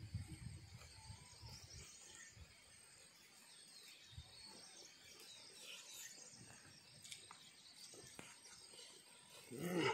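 Faint outdoor ambience of birds calling and insects chirring over a rice paddy, with soft chewing sounds in the first couple of seconds. A brief louder sound comes just before the end.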